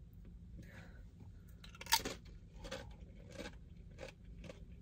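A person chewing a big mouthful of burrito-bowl food, with a louder crunch about two seconds in, then steady chews roughly every 0.7 seconds.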